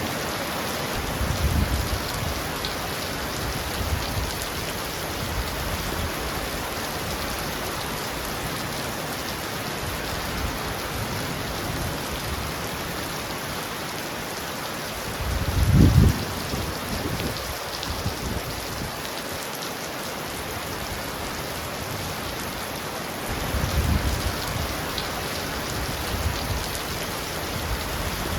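Heavy rain falling on a roof, a steady dense hiss, with three brief low rumbles, the loudest about halfway through.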